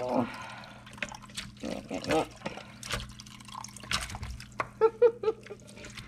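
Cooled chicken broth and the boiled chicken pieces and vegetables pouring from a stock pot into a plastic colander: liquid trickling and dripping, with scattered soft knocks as the solids drop in, and three short, louder sounds about five seconds in.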